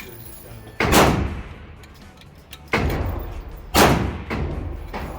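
Three gunshots, about a second in, again near the middle and once more a second later, each with a short echoing tail.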